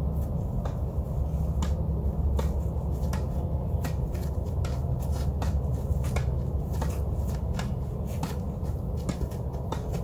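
Tennis balls struck by racket strings in a rally of volleys: sharp pocks about once or twice a second, heard over a steady low rumble.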